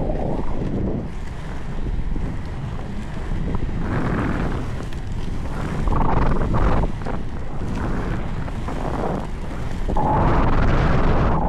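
Wind buffeting the microphone of a camera carried along by an inline skater, over the low rumble of skate wheels rolling on worn, cracked asphalt. The wind swells about six seconds in and again near the end.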